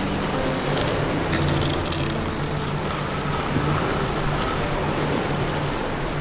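Masking tape being peeled off the edges of a painted canvas: a steady tearing rasp, with soft background music underneath.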